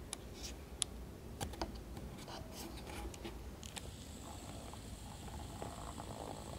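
Quiet room tone with faint scattered clicks and ticks, and a faint steady high whine starting about four seconds in.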